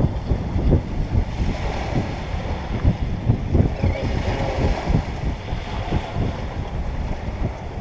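Wind gusting on the microphone, heard as rough low buffeting, over the steady wash of small waves breaking on a sandy beach.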